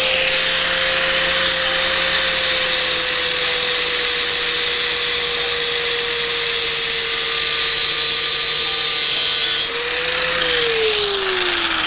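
Handheld electric power tool running continuously on a seized motorcycle spoke, its motor pitch sagging slowly under load. Near the end the pitch rises briefly, then winds down as the tool is let off.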